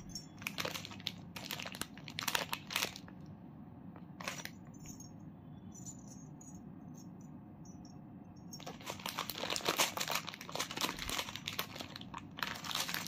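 Jewellery and its wrapping being handled: crinkling rustles and small clicks, busy at first, quieter through the middle, then dense rustling again for the last few seconds.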